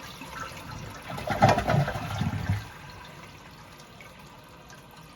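Toilet tank water after a weak flush: a short louder surge of water with a few low knocks about a second and a half in, then a steady quiet hiss as the tank refills.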